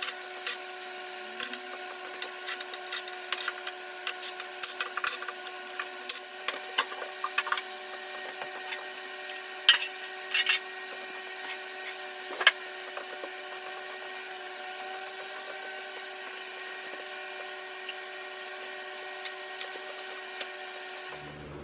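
Sharp clicks and clinks of hand tools on the Ford 302 V8 engine while its oil pan is being unbolted. They come about two a second at first, then at irregular spacing, over a steady hum.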